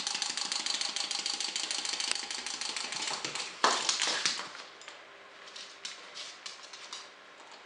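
Small orange wind-up walking toy, its clockwork clicking rapidly and steadily as it runs. About three and a half seconds in there is a sharp knock, and after it the clicking comes sparser and quieter.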